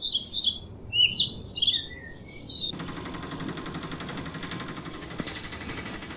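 A bird chirping in quick short notes for about the first two and a half seconds, then an abrupt cut to a small motor running steadily with a fine, fast, even buzz.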